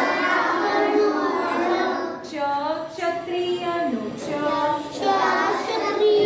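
Children singing a melody with held, gliding notes.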